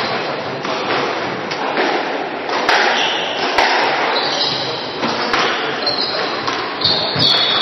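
Squash rally: the ball struck by rackets and cracking off the court walls about once a second, ringing in the enclosed court, with shoes squeaking on the wooden floor in the second half.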